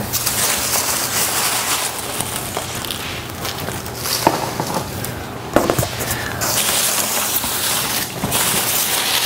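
Styrofoam packing peanuts rustling and crackling as hands scoop through them, with a couple of short squeaks.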